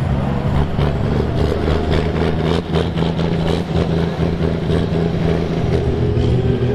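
Valmet tractor's diesel engine running steadily under load as it pulls a weight-transfer sled down the track.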